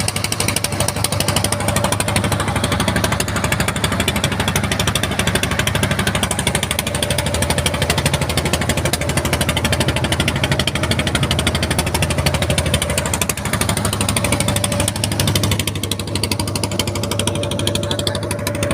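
A boat engine running steadily with a fast, even knocking pulse.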